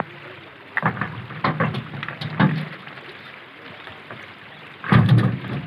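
River water rushing steadily, with several short knocks of river stones being handled and thrown into a steel dump-truck bed, the loudest cluster about five seconds in.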